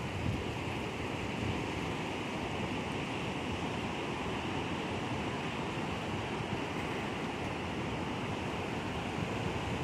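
Ocean surf breaking and washing onto a rocky shore, a steady unbroken wash, with wind over it.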